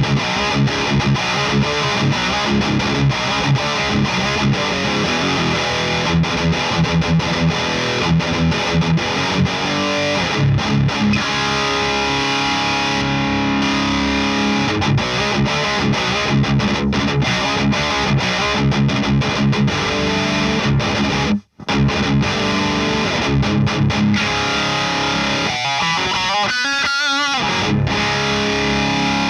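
Distorted electric guitar riffing through a Friedman Runt 50 tube amp, pushed by a drive pedal in front. The sound cuts out suddenly for a split second about two-thirds of the way through, then the playing resumes.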